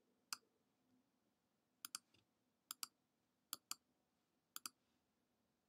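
Computer mouse clicking: a single click, then four quick double clicks about a second apart, as text is selected on screen.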